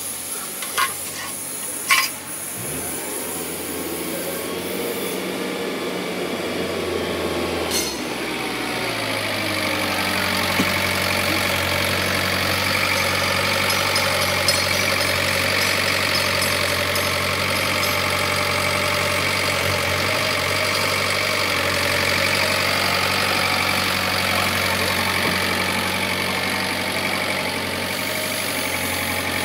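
Forklift engine running steadily, its note rising and settling into a steady run about eight seconds in. Two sharp knocks near the start.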